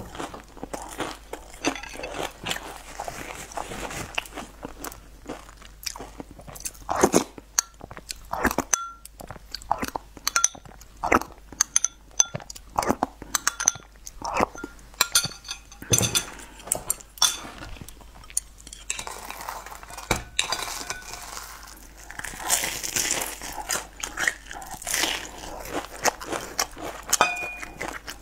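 Close-miked eating sounds: crisp crunching bites and chewing of crumb-coated fried food, in irregular bursts.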